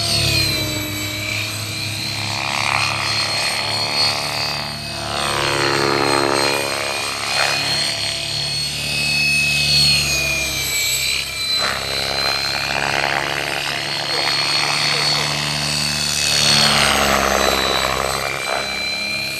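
Kasama Srimok radio-controlled helicopter in flight, its motor and rotor whine sweeping up and down in pitch several times as it swoops and manoeuvres, over a steady high tone.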